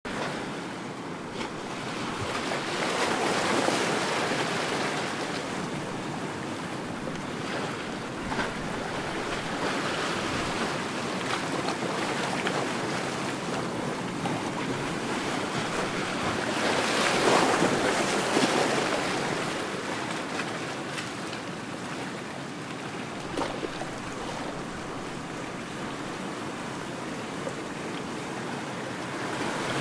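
Ocean surf: waves breaking and washing in a steady rush that swells louder twice, a few seconds in and again a little past halfway.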